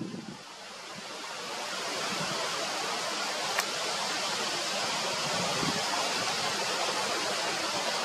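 Steady rushing of wind, building over the first couple of seconds and then holding even, with one small click about three and a half seconds in.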